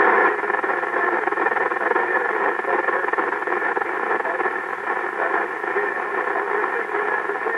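CB radio receiver on the 27 MHz band giving out steady static hiss through its loudspeaker, with no readable voice on the channel.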